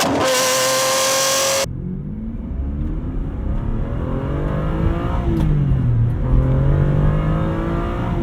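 A car engine holds a high, steady note. Less than two seconds in, the sound cuts to another car engine that revs up, eases off, dips and revs again, holding a steady pitch near the end.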